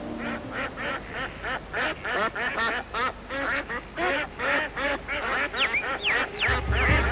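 Ducks quacking rapidly, several calls a second, in an overlapping chatter. Over the last second and a half a run of high, falling whistled calls joins in.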